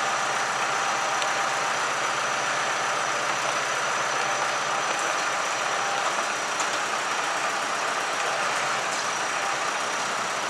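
Large bonfire burning: a steady rushing noise with a few faint pops.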